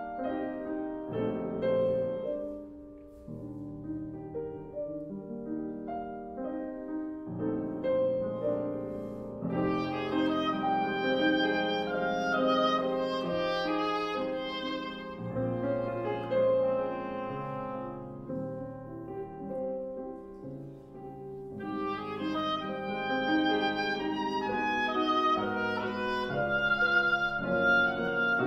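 Oboe and piano playing classical chamber music together: the oboe sings sustained melodic lines over the piano accompaniment, growing softer briefly twice before swelling again.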